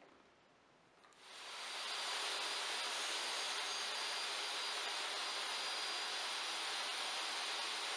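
DeWalt DWE7491RS jobsite table saw switched on about a second in: its motor spins up within about a second, then runs steadily at full speed with a hissing whine.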